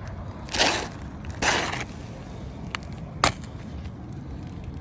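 Two short gritty scrapes on asphalt roof shingles about a second apart, then a few sharp clicks.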